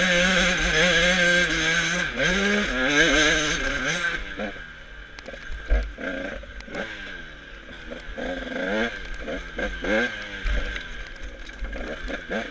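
Dirt bike engine held at high revs under hard throttle, with one dip and rise of revs about two seconds in. From about four seconds in it drops to lighter throttle, with short blips of revs rising and falling again and again through the rest.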